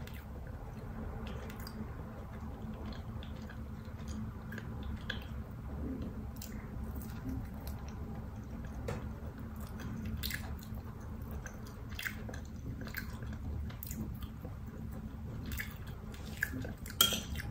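Close-up chewing and biting of roasted chicken eaten off the bone by hand, with scattered small wet clicks and smacks of the mouth. A few louder clicks come near the end.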